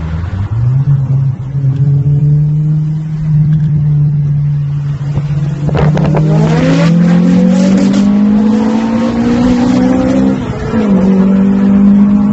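Jackson Racing-supercharged Honda Civic Type R EP3's 2.0-litre four-cylinder engine revving hard on the limiter with its wheels spinning for grip. A burst of sharp crackles comes about six to eight seconds in, and the revs dip briefly about ten and a half seconds in.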